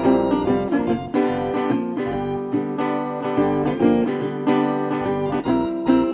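Background music: acoustic guitar strummed and picked, with rapid plucked notes.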